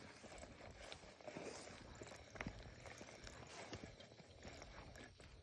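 Faint rustling with small irregular clicks and knocks, one a little sharper about two and a half seconds in.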